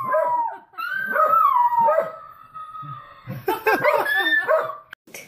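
Two dogs howling together: a shepherd-type dog in the room and a second dog heard through a tablet's speaker on a video call. Long howls slide down in pitch, and several calls overlap near the end before the sound cuts off suddenly.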